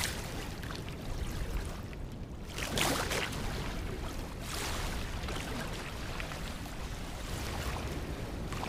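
Sea water lapping and splashing against shoreline rocks, with wind buffeting the microphone as a steady low rumble. Louder splashes come about three seconds in and again about four and a half seconds in.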